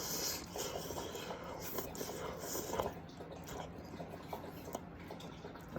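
A person chewing a mouthful of spicy instant ramen noodles: soft wet mouth sounds with small scattered clicks.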